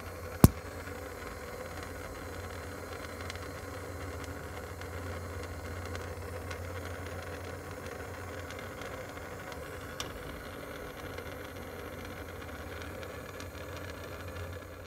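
Handheld Bernzomatic propane torch burning with a steady rushing hiss as it heats a seized clutch slave cylinder fitting. A sharp click comes just after the start, and a faint one about ten seconds in.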